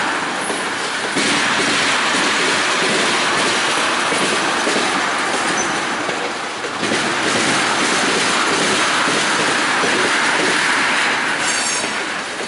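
Freight train of tank cars rolling past, steel wheels running on the rails in a steady loud rush that eases briefly twice. A faint high-pitched wheel squeal comes in near the end.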